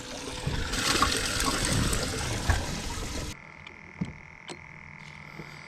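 Water splashing and gushing for about three seconds, then cutting off abruptly, leaving a faint steady hum with a few small clicks.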